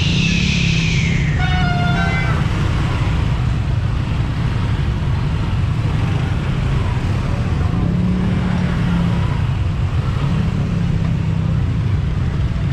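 Road traffic noise with a constant heavy low rumble, as heard from a bicycle on the road. A brief falling whine comes at the start, then a short horn toot about a second and a half in.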